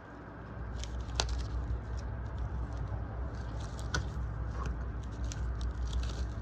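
Plastic wrapping being peeled and crinkled off a pack of cards: scattered sharp crackles and clicks over a low rumble of handling noise.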